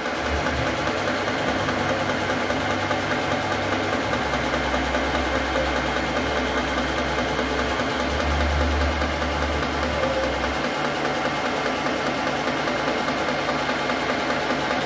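Milling machine running, its end mill cutting along the edge of a metal plate held in a vise, a steady machining whine. A deeper hum underneath stops about ten seconds in.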